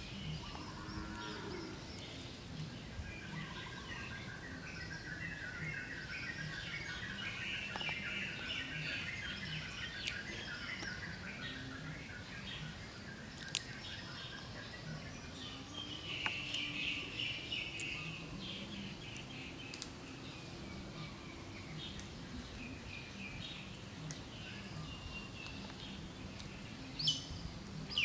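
Background birdsong: many small birds chirping steadily, busier at times, over a faint low rumble, with a few sharp clicks.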